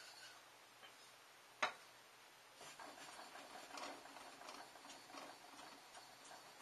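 A makiri knife's steel blade stroked back and forth on a wet whetstone: soft, repeated scraping starting about two and a half seconds in. A single sharp click comes shortly before the strokes begin.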